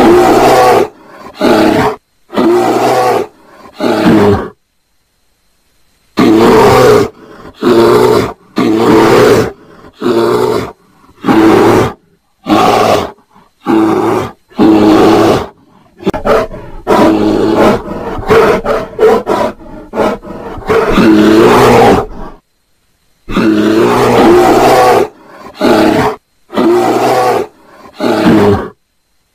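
Bears calling during mating: loud calls repeated in quick succession, each under about a second long, with a few longer pauses.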